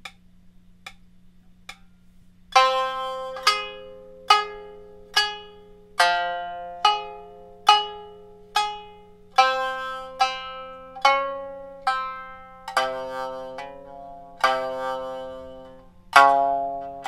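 Shamisen in honchōshi tuning (C-F-C) playing a slow drill, one plucked note a little more often than once a second, each struck sharply and dying away. A few faint count-in clicks at the same pace come before the first note, about two and a half seconds in.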